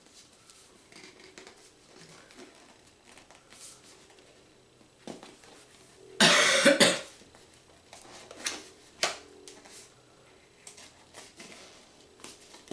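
Fingers picking and scratching at the sealed top of a cardboard tablet box in soft, scattered rustles. One loud cough about six seconds in, then a few sharp clicks.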